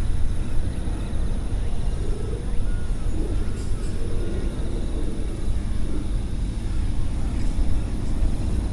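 A cat purring steadily as a low rumble close to the microphone while it is stroked.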